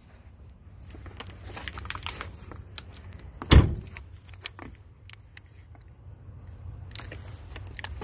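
Scattered small clicks and rattles with one loud thump about three and a half seconds in, over a low steady hum.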